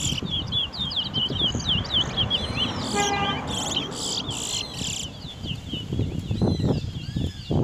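Towa-towa finches singing: quick chirps and arching whistled notes in fast series, with a short pitched tone about three seconds in and a steady low rumble underneath.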